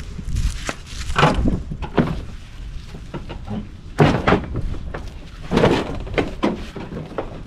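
Irregular clunks and knocks of parts and tools being handled during work on a car's front end, about seven strikes in a few seconds, the loudest about four seconds in.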